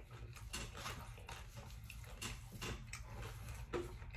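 A mouthful of beef burrito being chewed close to the microphone: soft, irregular clicks and smacks of the mouth, over a low steady hum.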